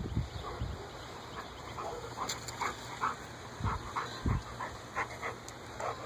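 Labrador retriever making short, soft sounds that repeat about twice a second, with two dull thumps near the middle.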